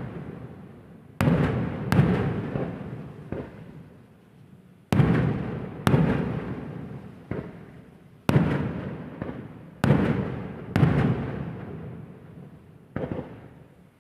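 Firecrackers going off one after another: about eight sharp bangs, several in pairs about a second apart, each followed by a long rolling echo that dies away.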